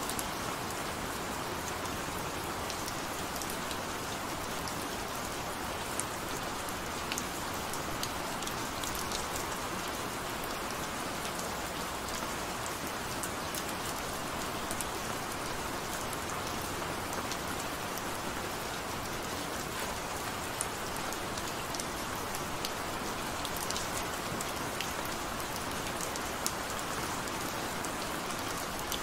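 Gentle rain falling steadily: an even hiss of rain with scattered sharp ticks of single drops.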